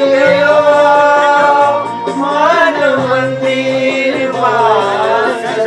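A man singing a Hindi song into a microphone, holding long wavering notes over steady low accompaniment notes that change pitch about halfway through.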